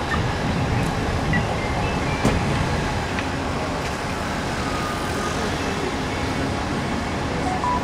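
Steady vehicle and traffic noise, a low even rumble with a single faint click a little over two seconds in.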